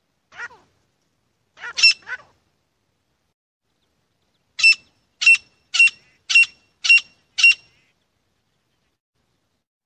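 Grey francolin calling. A few softer notes come in the first two seconds, then a series of six loud, sharp, evenly spaced notes at about two a second starts about four and a half seconds in.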